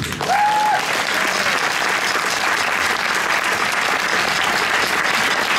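Audience applauding steadily, with a short cheer from the crowd about half a second in.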